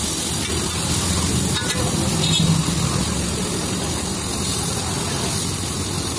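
Onions and tomatoes sizzling steadily on a large flat iron tawa, with a low steady rumble underneath.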